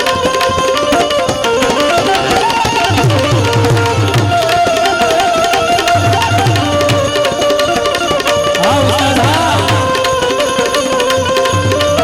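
Instrumental interlude of a Gujarati devotional aarti: a harmonium holding the melody over tabla and other percussion keeping a steady beat. Deep drum strokes come in a group about every two seconds.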